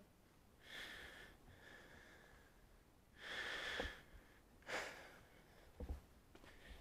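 A person breathing hard close to the microphone: three noisy exhales, the loudest about three seconds in, with a few short low thumps.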